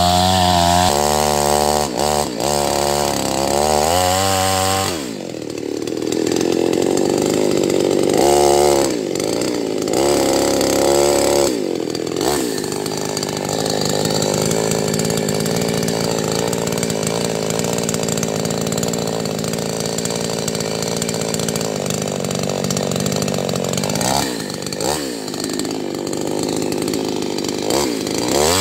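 Chainsaw running fast, then dropping sharply in pitch about five seconds in as it cuts into a tree. The engine pitch rises and falls briefly a few times, then holds a lower, steady pitch through a long cut.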